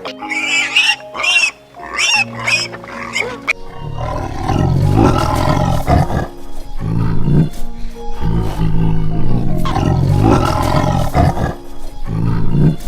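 A large wild animal roaring repeatedly in long, rough calls with short breaks, over background music. In the first few seconds, before the roaring begins, there are shorter high-pitched squeals.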